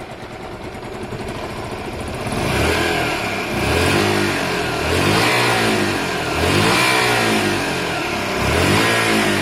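Honda Varadero 125's V-twin engine idling, then revved by hand about five times from around two seconds in. Each rev rises and falls back, on freshly tuned carburettors.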